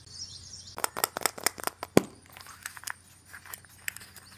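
A plastic surprise egg being handled and opened: a quick run of sharp plastic clicks and crinkles, with the loudest snap about two seconds in, then lighter scattered ticks.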